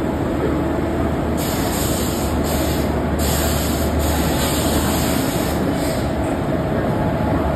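WAP-4 electric locomotive running at the platform: a steady low hum under a broad noise, with a high hiss that starts about a second and a half in and cuts in and out several times.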